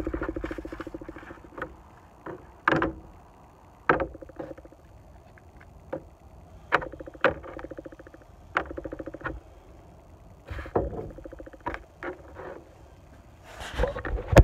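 Handling of plastic mount parts and straps on a workbench: scattered clicks and knocks, with several short spells of fast rasping rattle, and a louder rustle near the end.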